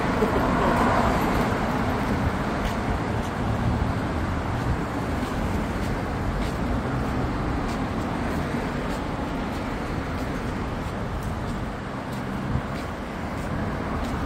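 Steady city road-traffic noise from passing cars.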